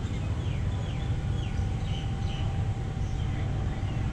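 Boat engine running with a steady low rumble and a faint hum, while a bird calls repeatedly with short falling chirps.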